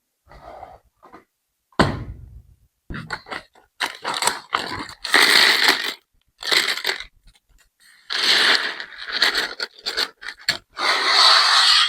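Hard plastic LEGO bricks and parts being handled, with irregular scraping, crackling and rustling and sharp clicks of pieces knocking together.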